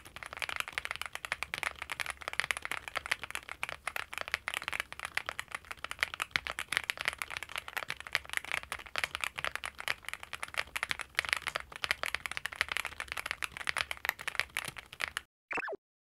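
Fast, continuous typing on the Cupid-65, a gasket-mounted 65% custom mechanical keyboard: a dense run of key clicks that stops about fifteen seconds in.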